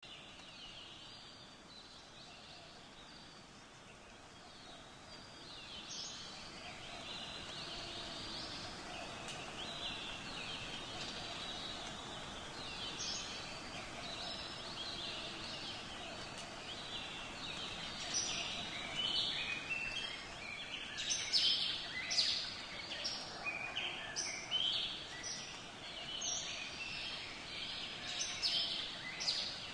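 Birdsong ambience: many small birds chirping over a faint steady hiss, the calls becoming busier and louder about two-thirds of the way in.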